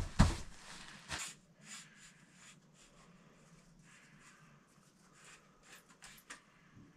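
Gear being packed by hand: a few sharp knocks of things set down in the first second, then faint rustling and light taps as items are handled.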